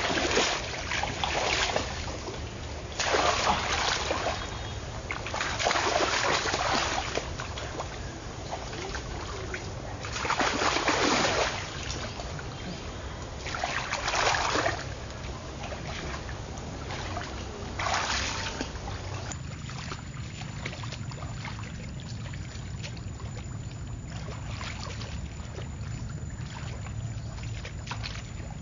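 Water splashing in about six separate bursts a few seconds apart, as things are moved through shallow water. Then, from about two-thirds of the way in, only a quieter steady rush of water.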